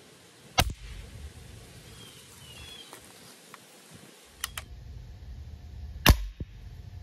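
Winchester 1977XS .177 multi-pump air rifle firing a pellet with a sharp crack about half a second in. A few small clicks of handling follow around four and a half seconds, then a second, louder crack about six seconds in, over wind rumbling on the microphone.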